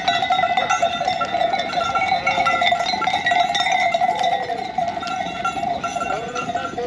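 Livestock bells ringing steadily and continuously, with short animal calls among them.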